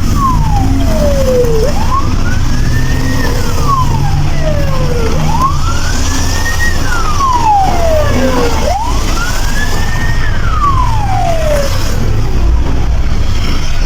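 Ambulance siren on the wail setting: one tone slowly rising and falling, a cycle about every three and a half seconds, over a low engine rumble.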